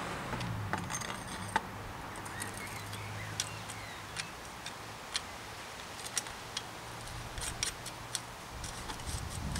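Scattered light metallic clicks and clinks of tools and small bicycle parts being handled, coming more often near the end, over a steady low hum.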